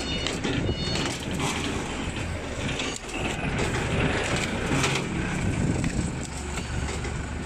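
Plastic strapping band being fed and pulled tight around a cardboard box on a strapping machine, with cardboard scraping and rustling as the box is shifted by hand. A steady low motor hum runs underneath.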